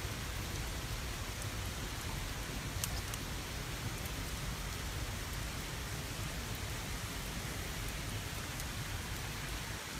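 Oak wood fire burning in a hearth's firebox: a steady rushing hiss of flames with a few scattered crackles, the sharpest pop about three seconds in.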